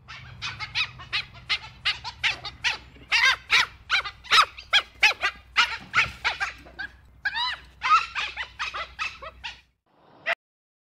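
Dhole (Asiatic wild dog) giving a quick run of short, high calls, about three or four a second, each rising and falling in pitch. The run breaks off shortly before the end, and one last call follows.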